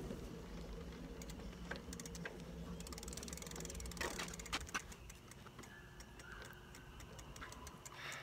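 Bicycle rolling over asphalt, its rear freewheel ticking rapidly while coasting over a low tyre rumble. The ticking comes thickest a few seconds in.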